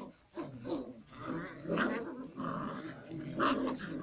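A litter of 51-day-old puppies growling as they bite and tug at a rag toy, several small growls overlapping in uneven bursts.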